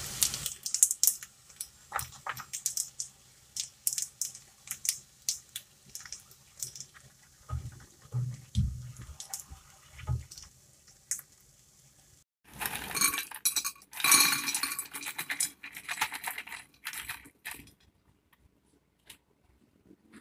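Clinks and clatters of a spatula and crisp fried macaroni against a frying pan and a plastic draining basket: scattered sharp clicks at first, then a dense stretch of rattling about twelve seconds in that lasts some five seconds.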